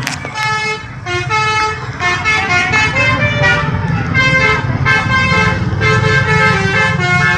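Bus 'telolet' musical horn playing a quick melody, its note jumping every fraction of a second, over the low rumble of the bus engine.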